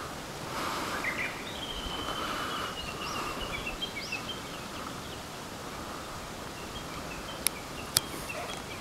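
Outdoor ambience: a steady background hiss with small birds chirping, including one held trill, and two sharp clicks about half a second apart near the end.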